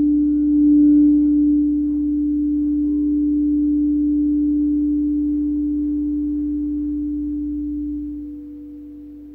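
Crystal singing bowls ringing, played with a mallet at the rim. One low, steady tone swells to its loudest about a second in and holds. A higher bowl tone joins about three seconds in, and the ringing dies away after about eight seconds.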